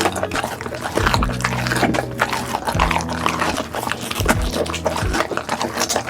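Dog eating, with quick wet chewing, crunching and smacking sounds, over background music with a steady low bass line.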